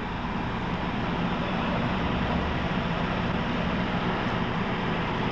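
Steady low rumble of running machinery with constant noise over it, unchanging throughout.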